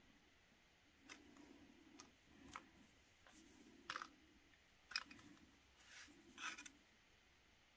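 About half a dozen faint, sharp taps and clicks, spread unevenly, as small rubber letter stamps are handled and pressed onto a sketchbook page. The loudest two come about four and five seconds in.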